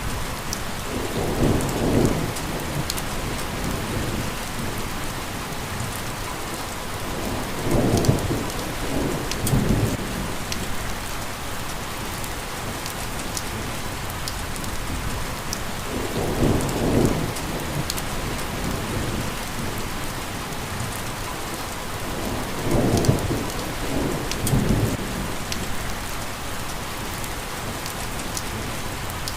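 Steady rain falling, with low rolls of thunder swelling up four times.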